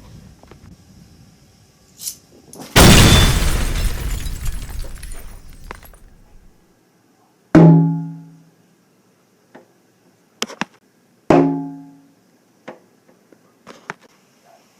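A string of separate sound effects: a loud blast of noise that dies away over a few seconds, then two ringing pitched hits a few seconds apart, with short clicks scattered between and after.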